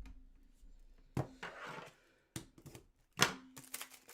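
Rigid plastic card top loaders and cards being handled: a few sharp clacks, about a second in, around two and a half seconds and loudest just after three seconds, with rustling between them.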